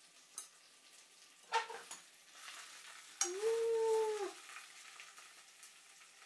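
Greens sizzling in hot oil in a frying pan while chopsticks stir them. About three seconds in, a steady high tone lasting about a second stands out as the loudest sound.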